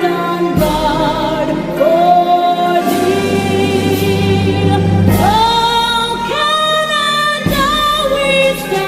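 Choral music: a choir singing long, held notes with vibrato, changing pitch every second or two.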